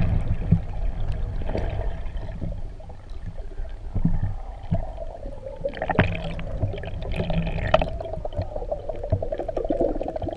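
Underwater sound through a camera's waterproof housing: muffled rushing and gurgling of water moving around the camera, with a low rumble and scattered irregular knocks.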